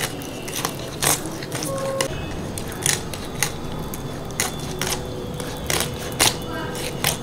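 Rohu fish being cut on a boti, the upright kitchen blade: irregular sharp crackling clicks as the fish is pressed and drawn against the blade.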